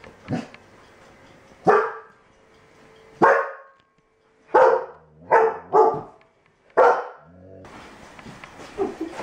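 A dog barking: about six loud, separate barks, roughly a second apart, with one faint bark just before them.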